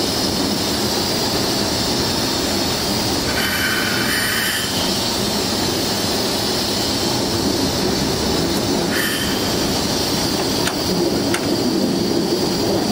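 Diesel locomotive under way, heard from inside its cab: steady engine and wheel-on-rail running noise. Two brief high-pitched squeals come, one a few seconds in and a shorter one past the middle, and the running note grows a little louder near the end.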